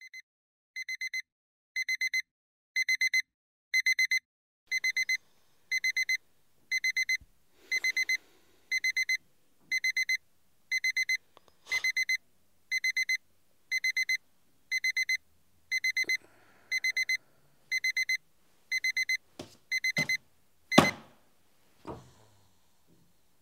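Electronic alarm clock beeping in quick bursts of about four high beeps, one burst a second, growing louder over the first few seconds. The beeping stops near the end, followed by a loud knock and a softer one a second later.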